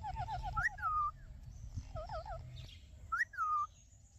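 Parrot calling in shrill whistled notes: a quick warbling trill, then a short wavering call about two seconds in, and a sharp call that rises and falls a little after three seconds.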